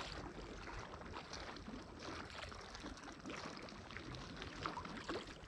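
Small sea waves faintly lapping and trickling against the rocky shore, with scattered small splashes.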